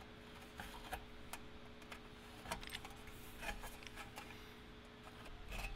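Hand deburring tool twisted in drilled rivet holes in thin aluminium sheet, shaving off the lip the drill bit left: faint, scattered small scrapes and metal clicks over a low steady hum.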